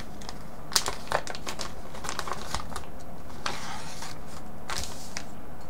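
Clear plastic zip-lock bag crinkling and rustling as it is opened and handled, with two sharp clicks about a second in and a denser stretch of crinkling near the end.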